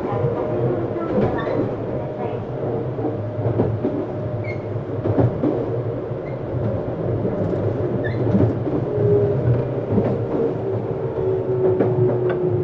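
Running sound inside a Tokyu 7700-series commuter train's motor car: a steady rumble of wheels on rail with scattered rail-joint clicks and a motor whine. Near the end the whine slides slightly lower.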